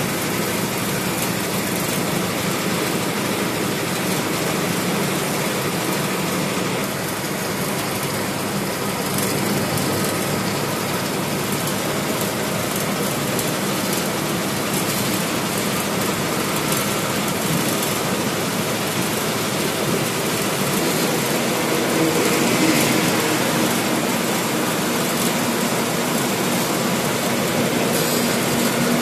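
Steady running noise of a coach heard from inside the driver's cabin at highway speed: engine drone mixed with tyre and road noise.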